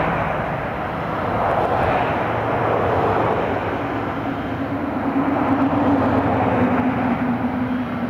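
Steady road traffic noise from passing cars, with chainsaws cutting trees running in the background, heard as a steady hum that comes up about halfway through.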